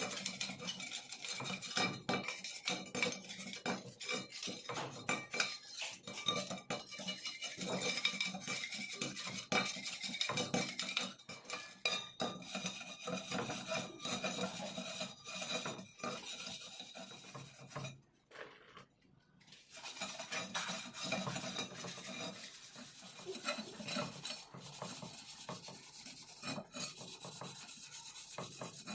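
Metal scraping and clinking as a bare steel scooter wheel rim is worked over by hand, with quick taps and brief metallic ringing. There is a short pause about two-thirds of the way through.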